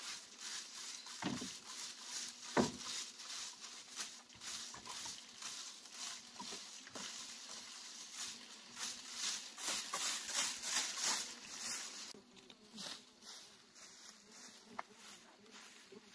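A short straw hand broom sweeping dry leaves and dirt on bare ground, a rapid run of brushing swishes with a couple of duller knocks in the first few seconds. The sweeping turns quieter about twelve seconds in.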